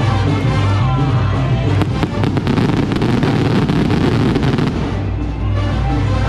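Music playing, with fireworks crackling rapidly for about three seconds in the middle.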